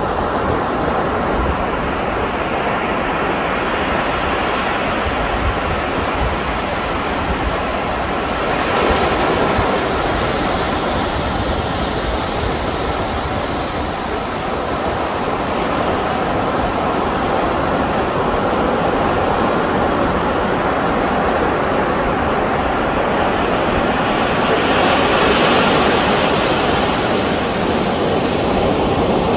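Ocean surf washing onto the shore as a steady rush, with waves swelling louder about nine seconds in and again near the end.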